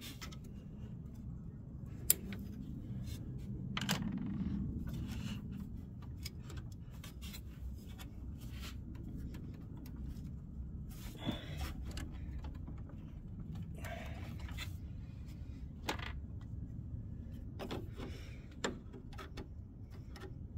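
Hands and a tool working at a plastic radiator hose coupling deep in an engine bay: scattered small clicks, scrapes and rustles of plastic and hose, with one sharp click about two seconds in, over a low steady hum.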